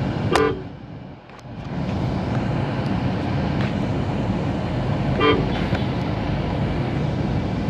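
Steady engine and road rumble heard from inside a moving car, with two short vehicle-horn toots: one right at the start and one about five seconds in.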